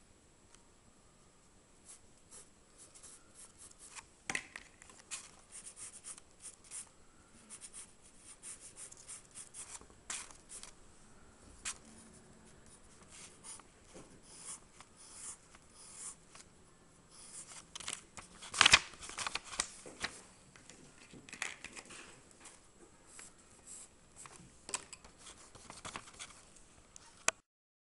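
Pencil scratching on paper in many quick, short strokes, with a louder cluster of scrapes about two-thirds through.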